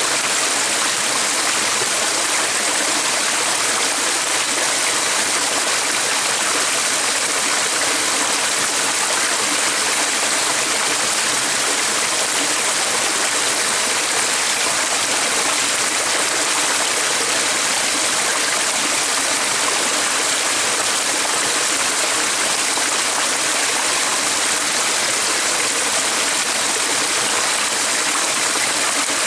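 Flowing stream: a steady, even rush of water that holds unchanged throughout, with no distinct splashes or calls standing out.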